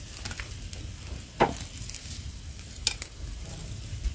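Pig's head and okra sizzling on a wire grill over charcoal, with a steady faint crackle and two sharp clicks about a second and a half apart.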